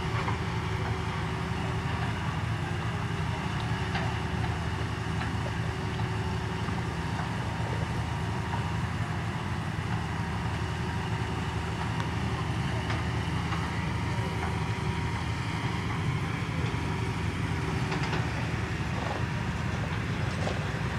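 Steady low engine hum, unchanging in pitch and level.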